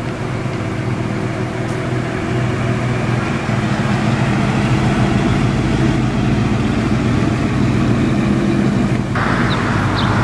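Vintage pickup truck's engine running steadily at low revs as the truck drives slowly past, a little louder midway. About nine seconds in the sound cuts abruptly to a brighter hiss, with engine sound still underneath.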